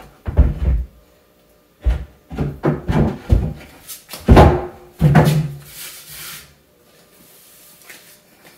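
A string of knocks and thuds as a painted shelf board is set onto its supports in a closet, the loudest about four seconds in, followed by a short scrape.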